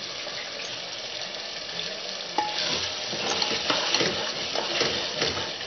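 Minced meat frying in ghee and its own released oil in a metal pot, sizzling steadily. About two and a half seconds in, a metal spoon clinks against the pot and starts stirring, scraping through the keema in repeated strokes.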